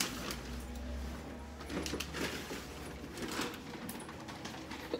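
Faint scattered clicks, taps and light jingles from a small leashed dog walking on a wooden floor.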